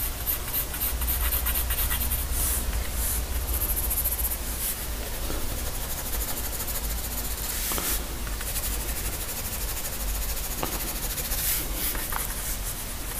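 Pencil graphite scratching over drawing paper in many quick shading strokes, with a few longer, louder scrapes between them.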